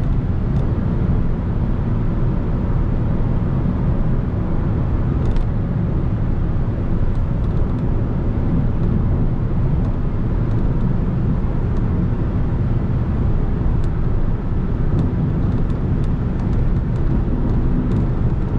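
Audi A3 cruising at highway speed: steady road and engine noise, a dense low rumble with a faint hum, and a few faint ticks.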